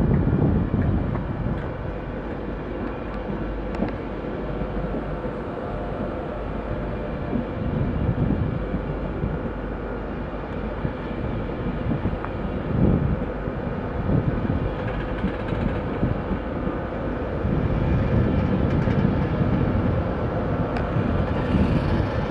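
Electric InterCity 225 train pulling out slowly, its Mark 4 coaches rolling past: an uneven rumble of wheels on rail with a faint steady whine.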